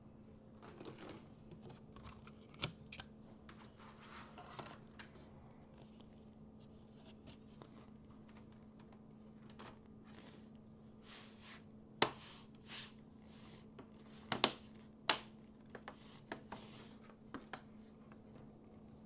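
Hands working on an opened Dell Inspiron laptop: scattered sharp small clicks and snaps with brief rustling scrapes, several of the loudest clicks in the second half, over a steady low hum.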